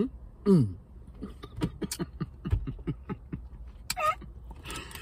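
A woman making playful wordless vocal sounds: short hums and yelps that slide up and down in pitch, a quick run of falling blips, then a higher squeal about four seconds in.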